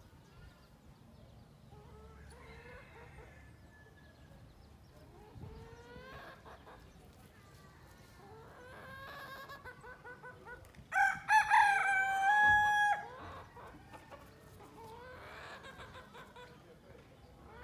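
Rooster crowing once, a loud call of about two seconds a little past the middle. Softer clucking calls from the chickens come before and after it.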